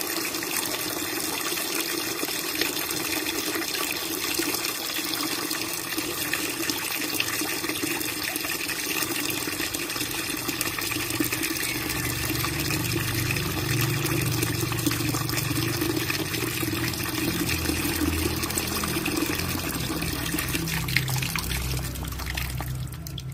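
Steady stream of water pouring from a pipe into a plastic basin, splashing into the water already in it. From about halfway in, a deeper sloshing joins the pour.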